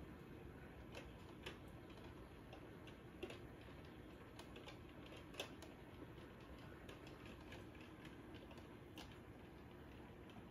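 Near silence: faint room tone with a few scattered, irregular light clicks.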